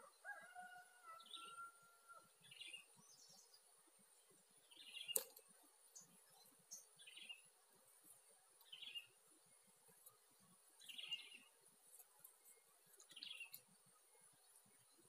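Faint bird chirps repeating about every two seconds, after a short whistled note at the start, over a steady high-pitched insect drone. A single sharp click about five seconds in is the loudest sound.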